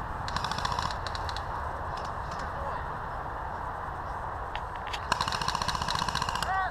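Two bursts of rapid automatic airsoft gun fire, a short one about half a second in and a longer one of about a second and a half near the end, over a steady low rumble.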